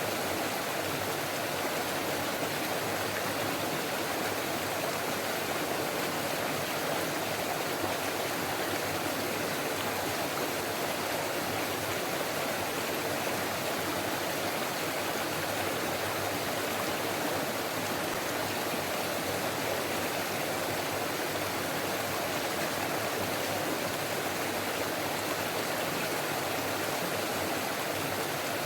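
Forest stream running steadily: a constant rush of flowing water that holds the same level throughout.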